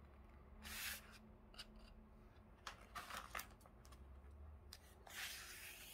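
Sheet of white paper being folded lengthwise by hand, its crease pressed and smoothed against the floor: faint paper rustling and sliding in a few short swishes, with a longer swish near the end.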